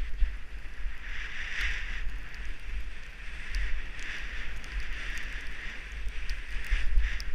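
Wind buffeting the microphone of a helmet camera while skiing fast downhill, with skis hissing through powder snow in swells that come and go about every second or so, with each turn.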